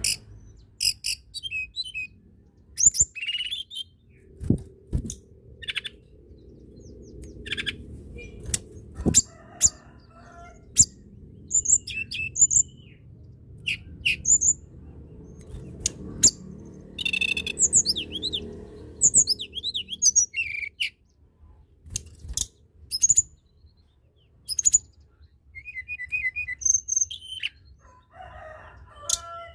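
Tledekan gunung songbird singing a long run of short, sharp chirps and whistled phrases with a few quick trills, broken by brief pauses. This is song used to stimulate captive birds of the same kind into singing.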